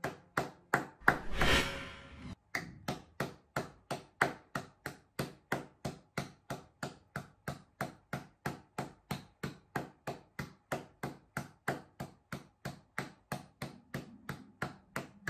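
One person clapping hands slowly and evenly, about three claps a second, in applause. A brief rushing swell is heard under the claps, ending about two seconds in.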